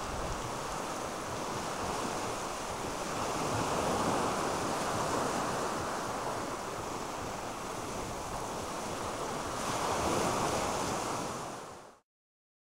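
Sea surf breaking on a sandy beach: a steady wash of waves that swells and ebbs slightly, cutting off abruptly near the end.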